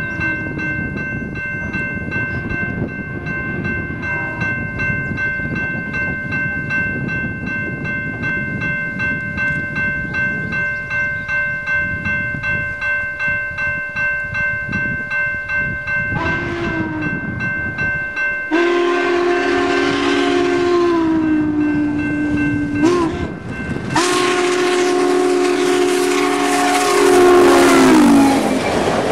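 Southern Pacific 4449's chime steam whistle blowing for a grade crossing as the locomotive approaches and passes: a brief blast just past halfway, then a long one, a short one and a final long one. The pitch sags as each long blast ends. Before the whistle, the approaching train makes a steady rhythmic pulsing.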